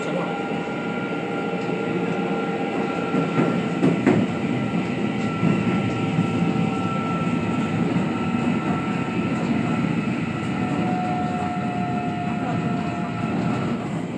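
Korail Line 4 electric commuter train, set 341x44, running on the rails as heard from inside the carriage, going from open air into a tunnel. A steady rumble with a few thin, steady high tones above it, and a few knocks of the wheels about four seconds in.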